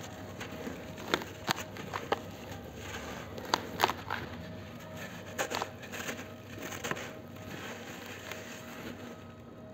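Hands squeezing and crumbling a dry, grainy powder block: scattered soft crunches and crackles at an uneven pace, a few sharper than the rest, thinning out near the end.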